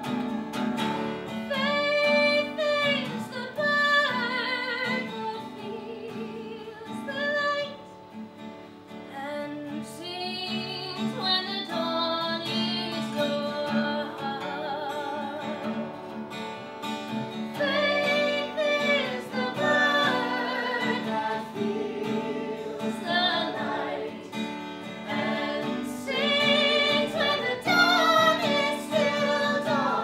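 Musical theatre song performed live: women's voices singing over an acoustic guitar accompaniment.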